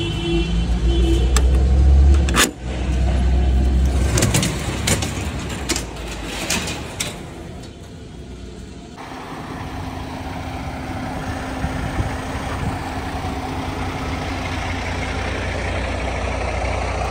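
Kenworth W900L semi truck's Cummins X15 diesel engine: a loud low rumble with several sharp clicks or knocks, then after an abrupt change about halfway in, a steady idle with a constant hum.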